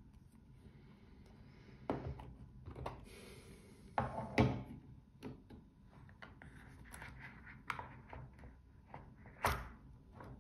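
Hard watch presentation box being handled, opened and set down on a table: several knocks and clunks, the loudest about four seconds in, with some rustling and small clicks. Near the end a sharp clack comes as the watch on its stainless steel link bracelet is lifted from its pillow.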